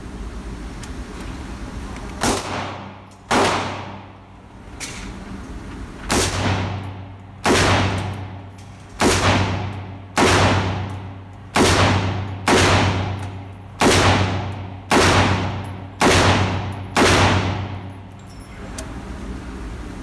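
A 5.56 AR-15 pistol with a 10.5-inch barrel firing about a dozen shots at a steady pace of roughly one a second, starting about two seconds in. Each shot is followed by a long echo that dies away in the enclosed indoor range.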